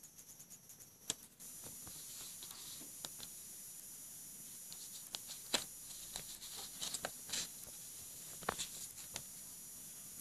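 Scattered clicks and light taps of a Samsung Galaxy Golden flip phone being handled and set down on a table, over a steady hiss; the sharpest click comes about halfway through.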